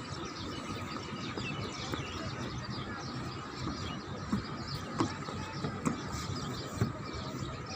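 Outdoor background noise with faint bird chirps and a few light knocks.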